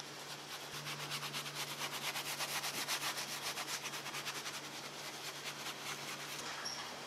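Soft detailing brush scrubbing foamy cleaner into a leather car door panel and armrest, a rapid run of even back-and-forth scratchy strokes, with a low steady hum underneath.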